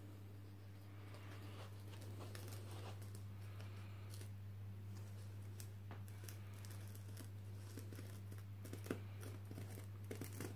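The point of a pair of scissors pressed and drawn along corrugated cardboard to score fold lines: faint scratching strokes, with a few sharp clicks near the end, over a steady low hum.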